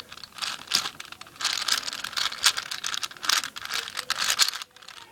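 A plastic 4x4 speed cube's layers being turned quickly by hand: a dense run of clicks and rattles that stops near the end. The moves pair up the orange and white edge pieces.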